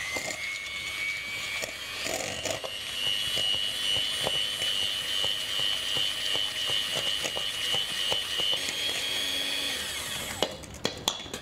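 Handheld electric mixer beating egg yolks and sugar in a stainless steel bowl. It makes a steady motor whine that steps up in pitch about two seconds in, with light ticks of the beaters against the bowl, and stops shortly before the end.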